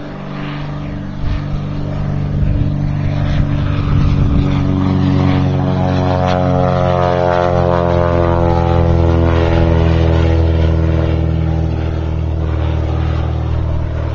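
Cessna 175 light aircraft with a converted Continental O-470 flat-six engine and propeller, running at high power in flight. The sound builds in loudness over the first few seconds, and its pitch falls over a few seconds midway.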